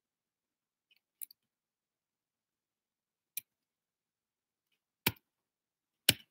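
Four short, sharp clicks in an otherwise near-silent small room, spaced one to two seconds apart, the last two loudest.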